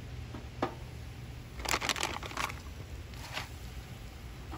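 Plastic zip bag of raw shrimp crinkling in short bursts as the shrimp are pulled out and laid on a grill grate, the loudest cluster about halfway through, over a low steady rumble.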